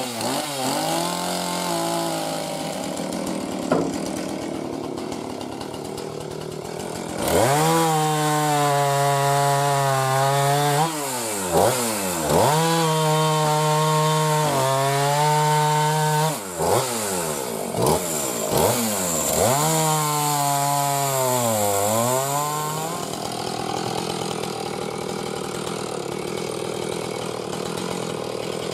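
Two-stroke chainsaw idling, then opened to full throttle and held there for about fifteen seconds while bucking firewood logs, its pitch dipping and recovering several times between cuts, before dropping back to idle.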